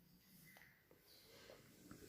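Near silence: room tone, with a few very faint small clicks.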